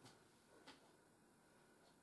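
Near silence: room tone, with two faint clicks less than a second apart.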